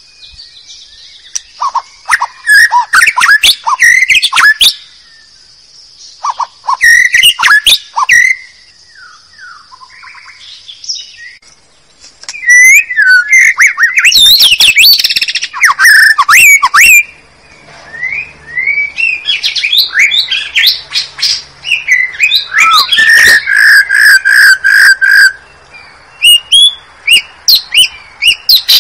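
White-rumped shama (murai batu) song played loud as a bird-trapping lure call: bursts of whistled notes gliding up and down, mixed with rapid sharp chips and chattering, broken by short pauses. A steady high tone runs under the first ten seconds or so, and in the last third comes a run of about eight even, repeated notes.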